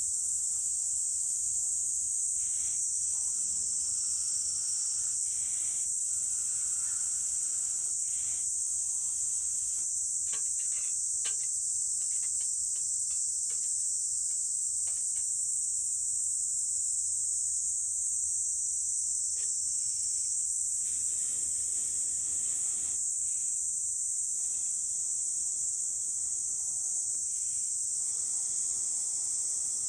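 A steady, high-pitched insect chorus dominates the sound, with a few short, sharp clicks in the middle of the stretch.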